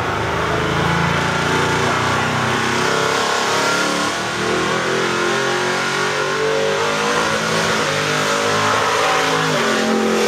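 A race car's engine held at high revs during a burnout, the pitch rising and falling as the throttle is worked, with a loud, steady rasp throughout.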